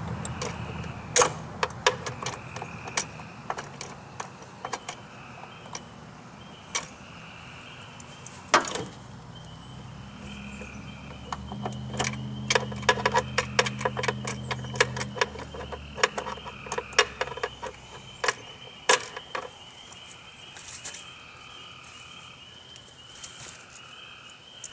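Irregular metallic clicks and clinks of bolts and hand tools being handled while a car door is fitted to its hinges. A low hum comes in about ten seconds in and fades out near eighteen seconds.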